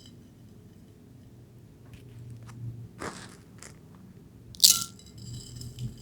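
Dried, crunchy soap being cut and broken: a few short crackling crunches, then one sharp, loud snap near the end.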